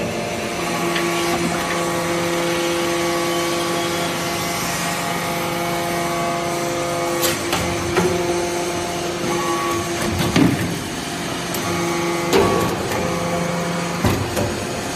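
Hydraulic press for compacting metal chips into briquettes, running with a steady hum and a held tone from its hydraulic pump as the ram presses the shavings. A few sharp knocks and clanks come a little past the middle and near the end as the press cycles.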